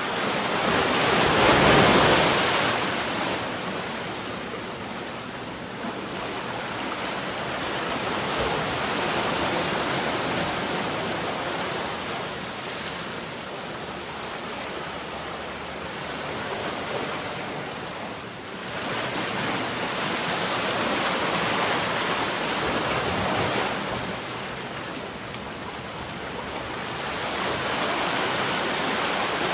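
Sea waves breaking and washing on a shore as a continuous rushing noise that swells and eases every several seconds, the biggest wave about two seconds in.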